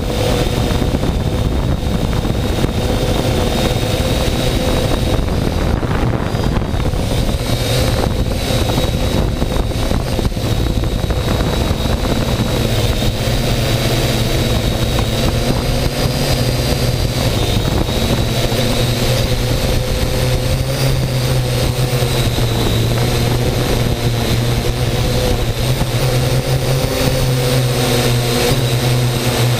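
Drone's motors and propellers running steadily in flight, heard up close from a GoPro hung beneath it, with a steady whine whose pitch shifts a little now and then.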